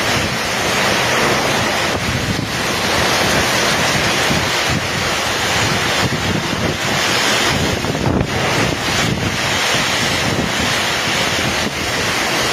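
Heavy rainstorm: loud, steady rain and wind, with wind buffeting the microphone.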